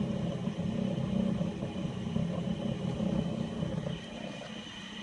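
Washing machine running with a loud, rough rumbling drone, the noise of a machine with a problem. The rumble drops in level about four seconds in.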